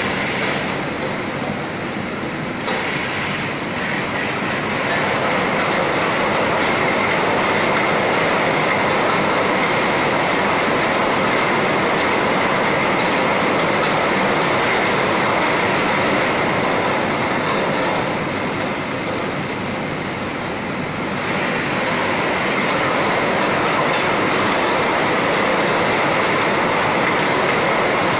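Bottle unscrambler and its conveyor running: a continuous clatter of empty bottles rattling along the guide rails, with a steady high tone through it. It eases off briefly twice.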